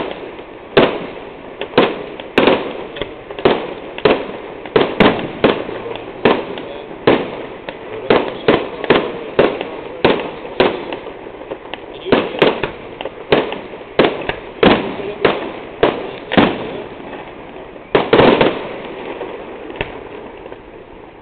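Fireworks display: aerial shells bursting in an irregular, rapid series of sharp bangs, one or two a second, with a dense cluster of bangs about eighteen seconds in before they thin out near the end.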